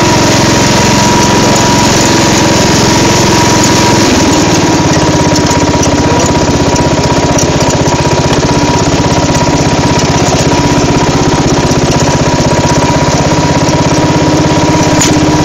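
Craftsman riding lawn mower's engine running under way off-road. About four seconds in the engine note dips and settles into a lower, even pulse, with a thin steady high whine alongside.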